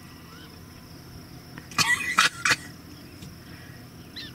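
Steady high-pitched insect trilling in grassland. About two seconds in, a quick burst of three loud, sharp sounds cuts in, and a few faint chirps follow near the end.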